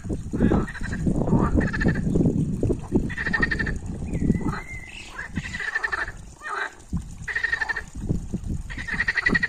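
A chorus of European green frogs (water frogs) croaking, with pulsed, rattling calls following one another about once a second.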